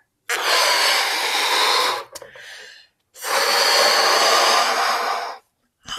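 A balloon being blown up by mouth: two long breaths of air pushed into it, each about two seconds, with a short, quieter breath in between.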